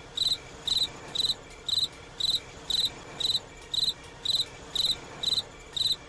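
Crickets chirping sound effect: short high chirps repeating about twice a second over a steady hiss.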